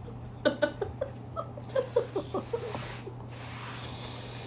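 Mouth sounds of someone eating a soft cream pastry: a quick run of short wet smacks, clicks and small squeaks over about two seconds.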